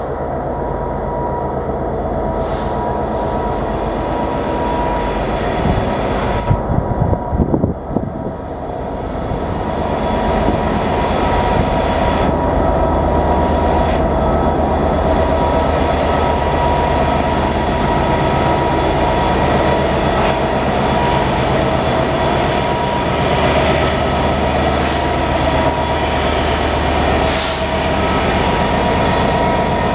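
A GB Railfreight Class 66 diesel locomotive, with its two-stroke EMD V12 engine, running as it hauls a freight train of covered hopper wagons past, together with wheel and wagon running noise and a steady wheel squeal. A brief burst of rough low rumbling comes about six to eight seconds in, and the sound grows louder from about ten seconds in as the locomotive draws alongside.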